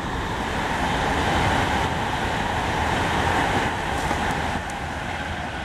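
Express passenger train passing through the station at speed without stopping: a steady rush of wheels on rail and moving air that swells, holds through the middle and eases off near the end.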